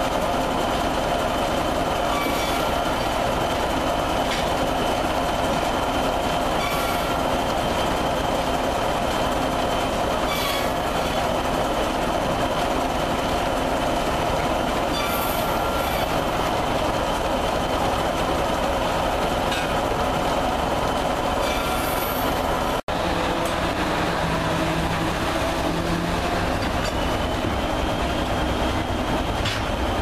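Sawmill flat-belt drive running: large belt pulleys on a line shaft turning with a steady mechanical clatter and a faint high whine, and a sharp click every few seconds. A brief dropout near the end, then the same steady machinery noise.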